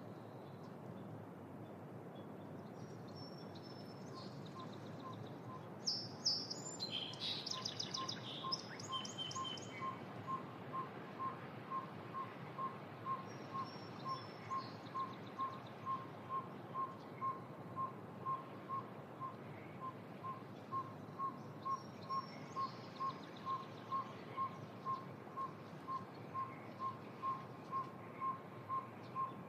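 Birds chirping and trilling in short clusters over a steady background hiss of wetland ambience. From about eight seconds in, a single short, low whistled note repeats evenly about twice a second.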